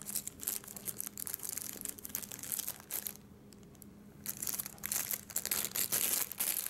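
Small resealable plastic bag crinkling as it is handled and its zip seal pulled open, in a run of crackles with a brief lull about three seconds in.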